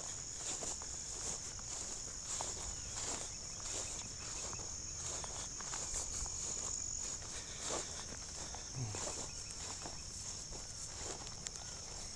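Steady high-pitched chorus of insects such as crickets, with scattered light clicks and rustles.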